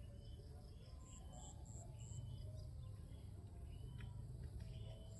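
Faint outdoor ambience: short high chirps repeat about three a second in runs of about four, over a low rumble and a thin steady high tone.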